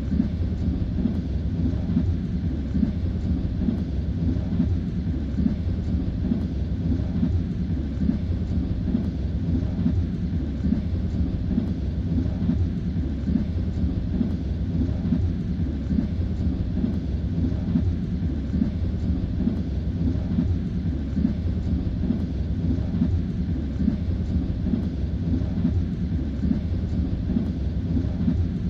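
Train wheels knocking on the rails, heard from inside a moving passenger carriage as a steady, deep rumble with no breaks.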